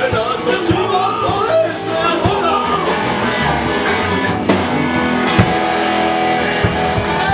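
Live rock band playing: electric guitars, bass and drum kit, with a wavering melodic line over the first three seconds, then held chords with drum hits.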